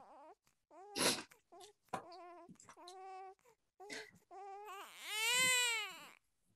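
Newborn baby crying: short wavering cries broken by a sharp breathy gasp about a second in, building near the end to one long wail that rises and falls.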